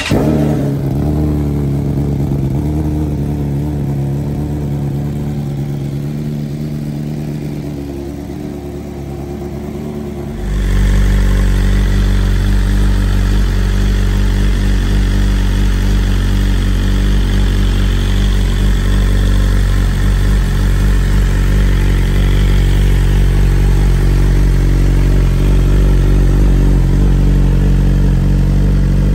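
BMW S1000RR inline-four engine idling steadily through Akrapovic titanium headers and the stock sport exhaust, just after starting. About ten seconds in the sound turns louder and deeper.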